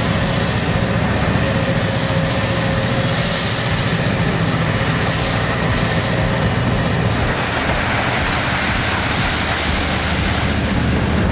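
Heavy machinery engine running steadily under a broad rushing noise.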